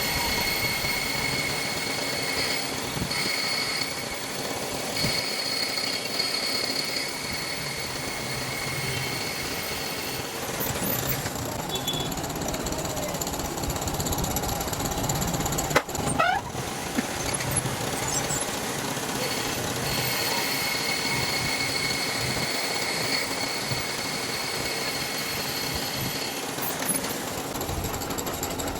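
Metal lathe running steadily while turning a bush for a CNG engine, with a high whine of the cut that comes and goes, and one sharp knock about halfway through.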